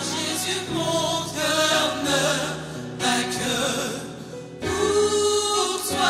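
Gospel choir singing drawn-out notes over musical accompaniment in a live worship song. The music softens briefly about four seconds in, then swells again.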